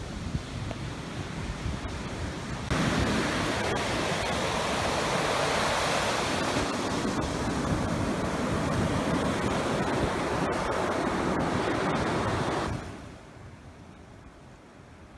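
Ocean surf breaking and washing up a sandy beach, heard as a steady rushing wash. It starts with a lower wind rumble on the microphone, turns suddenly much louder about three seconds in, and drops away abruptly near the end.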